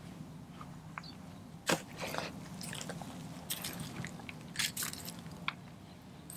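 A Doberman at a whole raw chicken with its feathers on: scattered short crunches and crackles as it noses and bites at the bird, a cluster of sharper ones about two seconds in and again around four and a half seconds.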